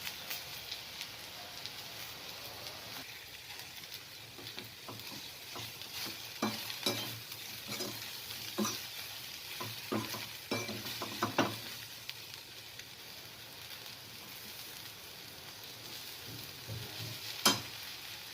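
Okra (bhindi) sizzling as it fries in a pan, with a steady hiss. A spatula stirs it, knocking and scraping against the pan in a run of irregular clicks through the middle, then one sharp knock near the end.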